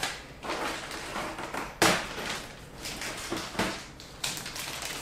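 Plastic lure packets rustling and crinkling as they are handled, with a few sharper clicks, the loudest a little under two seconds in.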